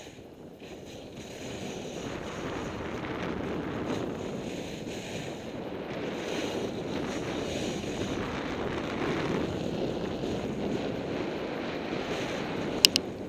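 Wind buffeting the microphone and skis hissing and scraping over groomed snow during a steady downhill run. Two sharp clicks near the end.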